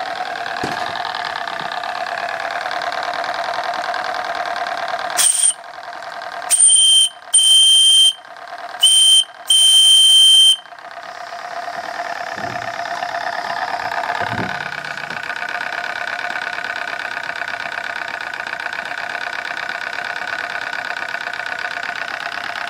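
Steam whistle on a model steam engine blown five times, a loud steady high tone, starting with a short toot and ending with the longest blast. Before and after, the small twin-cylinder TVR-1A steam plant runs with a steady mechanical hum.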